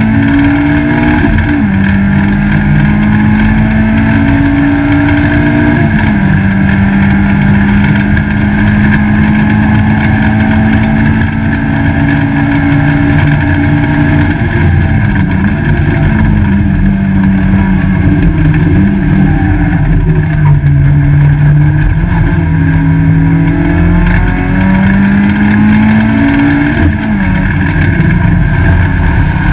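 Peugeot 205 GTi race car's four-cylinder engine heard from inside the stripped cabin, running hard at racing speed. Its pitch climbs and drops back several times, lowest for a couple of seconds past the middle, then rises again before dropping near the end.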